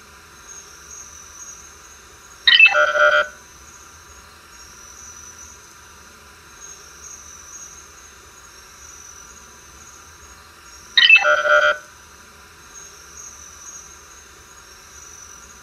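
Two short electronic sci-fi chimes, each under a second and about eight seconds apart, each a cluster of tones sliding down in pitch. Between them runs a steady, faint ambient bed with a thin high tone and a cricket-like hiss.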